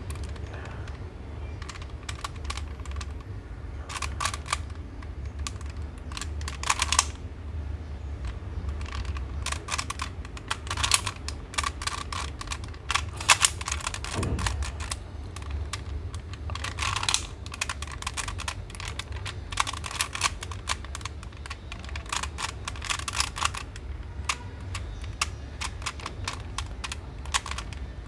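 A Latch Cube, a plastic 3x3 twisty puzzle with one-way latches, being twisted by hand: irregular runs of plastic clicking and clacking as faces are tried, several of them jamming against the latches. A low steady hum runs underneath.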